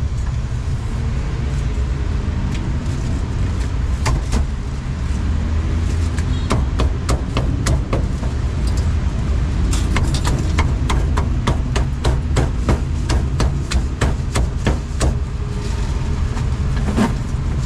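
A run of sharp knocks, a few a second, over a steady low rumble; the knocks start about a third of the way in, come thickest in the middle and stop near the end.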